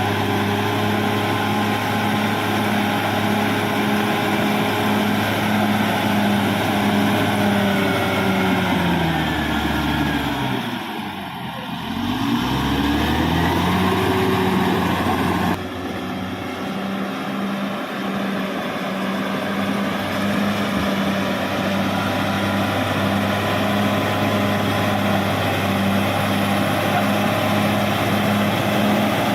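Caterpillar D6R XL bulldozer's diesel engine running steadily. About ten seconds in, its pitch sags sharply and climbs back, as the engine is pulled down under load and recovers. A little past halfway the sound drops abruptly in level, then carries on steadily.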